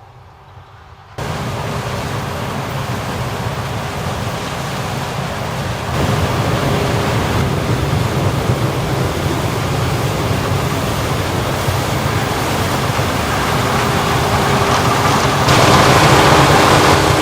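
Heavy farm machinery running under load at a corn harvest: a dense, steady wash of engine and machine noise with a faint hum. It comes in suddenly about a second in and gets louder in steps at about six and fifteen seconds.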